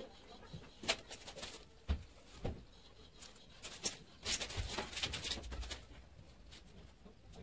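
Black granite slab pieces handled on a newspaper-covered floor: a few sharp knocks as stone is set down, then a scraping rub as a slab is slid into place about four seconds in.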